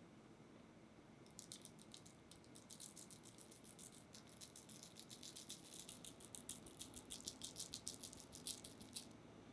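A quick run of light, crisp ticks and crackles, many each second, growing denser and louder toward the end: dry, crunchy topping crumbs sprinkled and scattered onto the cake while it is decorated.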